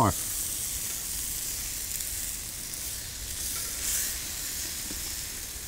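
Entrecôte steaks sizzling steadily on the hot flat griddle plate of a grill.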